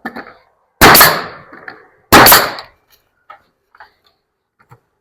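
Pneumatic Bostitch coil siding nail gun firing twice, a little over a second apart, driving nails into wooden boards.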